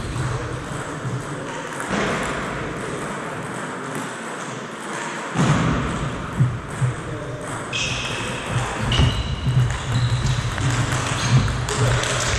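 Table tennis ball clicking off the rackets and the table in a rally, a sharp tick every second or so, starting about halfway through.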